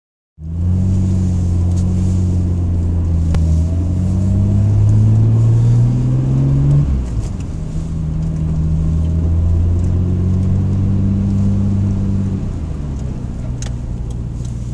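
Car engine heard from inside the cabin while driving, rising in pitch as the car accelerates, dropping abruptly about seven seconds in, then running steadily before easing off near the end.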